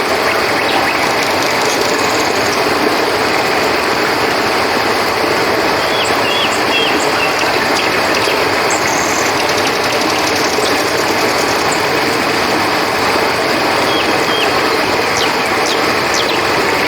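Flowing river water rushing steadily, under a continuous high trill of crickets. A few short chirps come through about six seconds in and again near the end.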